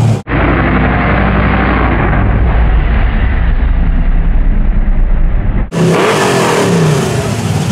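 An all-motor fourth-generation Chevrolet Camaro's engine running loud close by as the car rolls past. About six seconds in, the sound cuts to an engine revving in short rises and falls.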